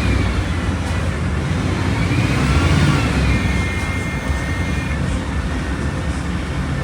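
Volkswagen Volksbus 17.230 bus's diesel engine running under way, with a steady low rumble and a whine that climbs and then drops twice as the revs rise and fall.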